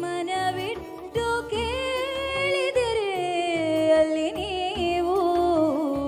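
A young woman singing solo into a microphone: a slow melody with long held notes that bend and waver in pitch, one high note held for over a second and then sliding down about halfway through.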